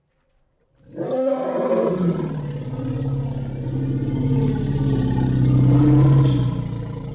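A large creature's long, deep roar, a film sound effect: after about a second of silence it starts abruptly and holds one low, steady pitch for about six seconds, growing louder near the end before fading.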